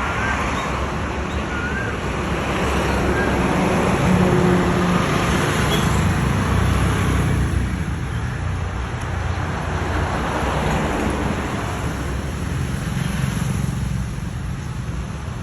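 Road traffic passing on a main road: a steady rush of engines and tyres that swells a few times as vehicles go by.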